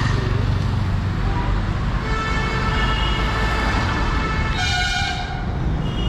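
Road traffic with vehicle horns honking. One horn is held for a couple of seconds from about two seconds in, then a shorter, louder horn blast comes near the end, over the steady low rumble of engines.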